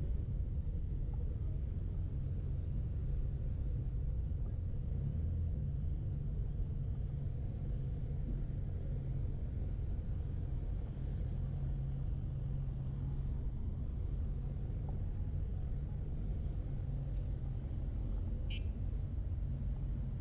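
Steady low rumble of city street traffic, with a few faint short high chirps or clicks near the end.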